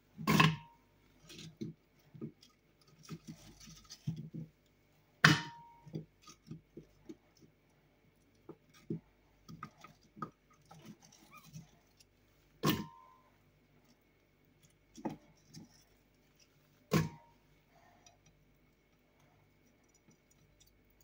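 Apple chunks dropped by hand into a glass blender jar: four sharp knocks against the glass, each with a brief ring, and softer taps of pieces landing in between.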